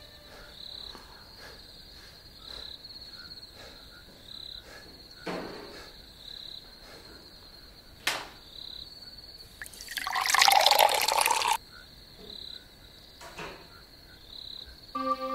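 Crickets chirping steadily in a quiet room at night, with a few sharp knocks of a glass on a table. About ten seconds in, water is poured into a glass for a couple of seconds.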